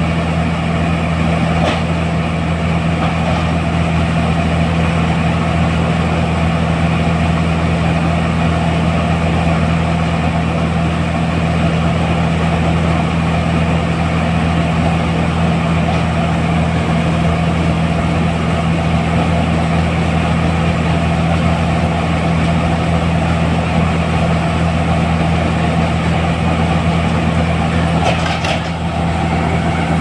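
Combine harvester's diesel engine running steadily at working speed while its unloading auger pours threshed paddy into a trolley: a constant loud drone with a deep hum. It dips briefly near the end.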